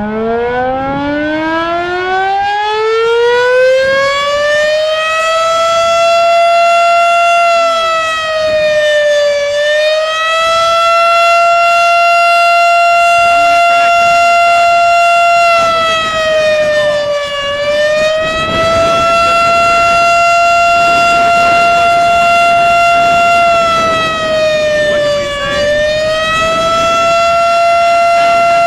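Town volunteer fire siren sounding to call out volunteer firefighters. It winds up, rising in pitch over the first six seconds, then holds a steady loud wail that dips briefly in pitch about every eight seconds.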